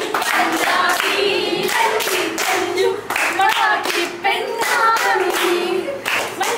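A group of women singing together unaccompanied while clapping in a steady rhythm, about two claps a second.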